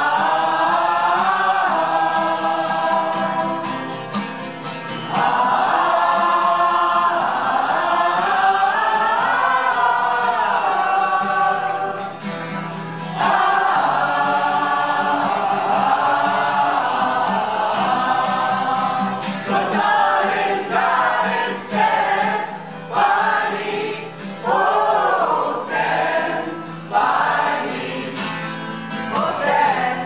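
A choir of men and women singing together in harmony: long held chords with brief breaks, turning into shorter, clipped phrases in the last third.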